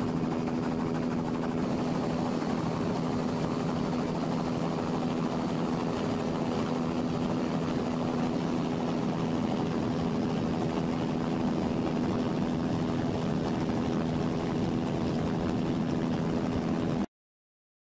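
Helicopter engine and rotor running steadily, with a constant low hum, then cutting off suddenly near the end.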